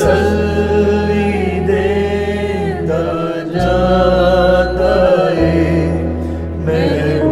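A Punjabi Lenten hymn being sung, the voices holding long, slowly bending notes over a sustained low accompaniment that briefly drops out twice.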